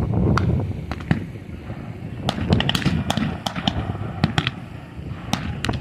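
Blank-fired small-arms gunfire in a reenacted battle: a dozen or so sharp shots at irregular intervals, some close together, with a low rumble in the first second.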